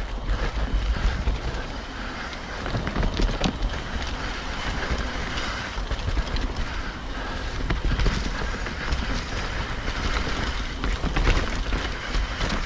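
Wind buffeting the microphone over the rumble of a mountain bike descending a dirt trail, with scattered clicks and knocks from the bike rattling over rough ground.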